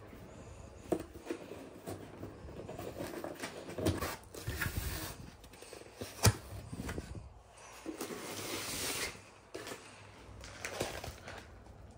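Handling noises: rustling with scattered clicks and knocks, one sharper click about six seconds in.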